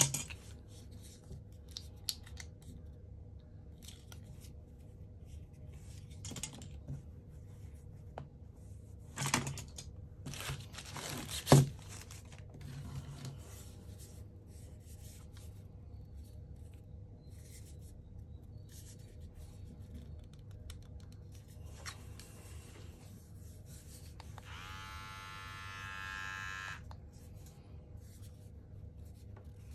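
Packaging being unwrapped and handled: rustles and crinkles, with a sharp knock about eleven seconds in. Later the Xiaomi Grooming Kit Pro trimmer is switched on and runs for about two seconds, its pitch rising as the motor spins up.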